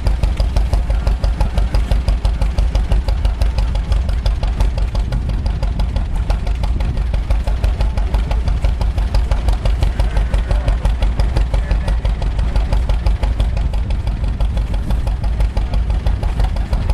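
Old tractor engine running steadily with an even, pulsing beat.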